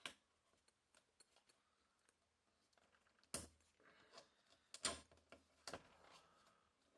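Faint, scattered clicks and light taps from hands and a razor blade working the sticker edge against a door, with three louder knocks between about three and six seconds in.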